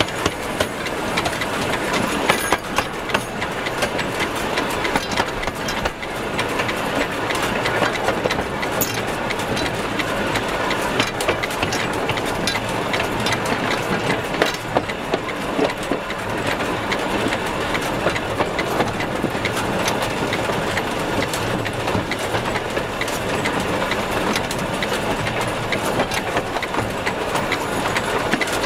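Steam locomotive Spreewald running, heard close to its driving wheels and motion: a steady clatter of the running gear and rails, with frequent sharp clicks and knocks.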